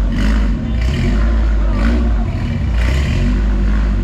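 Modified Honda Civic hatchback's engine and exhaust rumbling deeply as it rolls slowly off, the revs rising and falling with each blip of the throttle.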